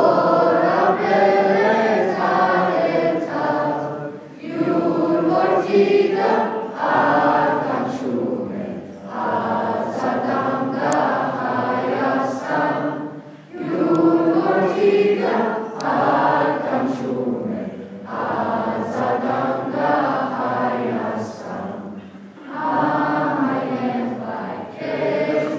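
A choir of voices singing together in phrases a few seconds long, with brief breaks between them.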